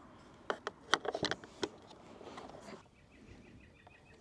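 A quick run of sharp plastic clicks and knocks as the access module and its cover plate are handled and fitted on the underside of a Segway Navimow robotic mower. From about three seconds in, a faint rapid chirping repeats in the background.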